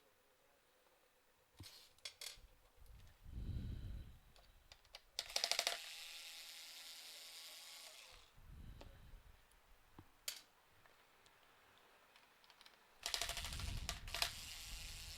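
Clicks, ticks and rustling scrapes of screws and plastic parts being handled while the CPU cooler retention brackets are taken off a motherboard. A quick run of ticks comes about five seconds in, and hissy rubbing noise follows it and returns near the end.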